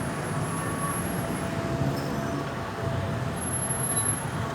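Road traffic noise: vehicle engines running with a steady low rumble, and no siren sounding.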